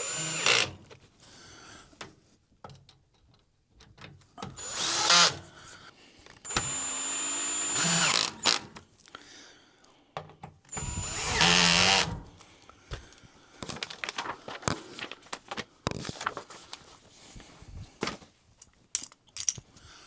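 Ryobi 18V cordless drill with a hex bit driving crib bolts, its clutch set to 8, running in four short spells. Light clicks and knocks of handling the bolts and frame fall between and after.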